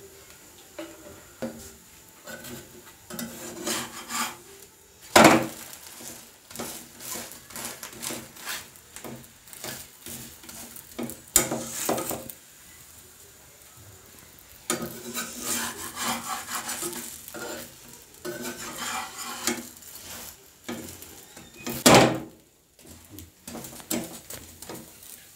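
Metal spatula scraping and tapping against a wok as a wheat-flour pitha fries in oil, with three loud knocks spread through.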